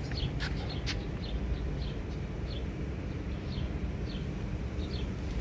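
Street ambience: a steady low rumble of city traffic, with two sharp clicks in the first second and faint, short high chirps recurring about once a second.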